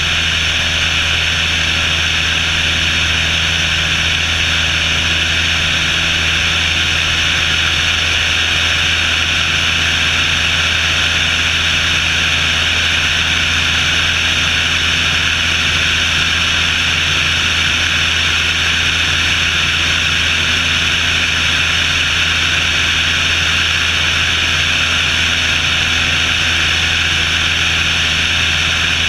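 Cessna 172's piston engine and propeller running steadily at climb power just after takeoff, a constant low drone under a strong, even hiss of rushing air.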